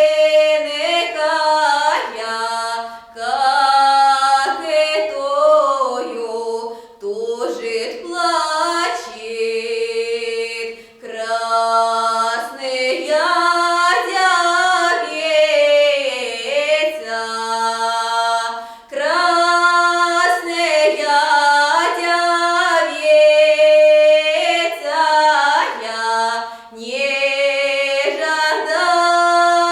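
A woman singing a slow, drawn-out lyrical Cossack folk ballad in the Nekrasov Cossack style, unaccompanied. The notes are long and held, with ornamented turns between them and short pauses for breath.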